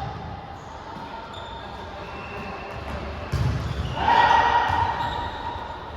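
Volleyball being hit with a sharp thump about three seconds in, followed by a drawn-out shout from the players.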